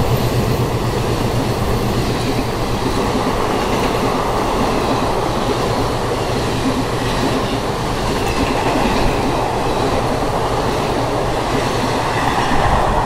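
Passenger coaches of an Indian Railways express train running through a station at speed, a steady loud rush and rumble of wheels on the rails.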